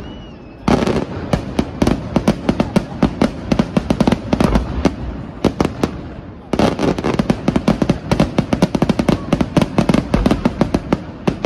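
Aerial firework shells bursting in rapid barrages, many sharp reports a second. The first barrage starts about a second in, there is a short lull around six seconds, and a second barrage runs until just before the end.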